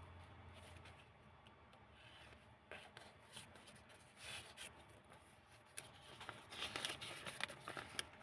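Faint rustling and crinkling of old book-paper pages being handled and turned in a handmade junk journal, in short scattered rustles that get busier in the second half.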